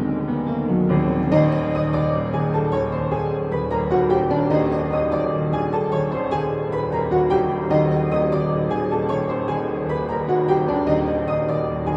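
Solo piano playing a pop song arrangement: steady flowing notes over held bass notes, the playing growing busier about a second in.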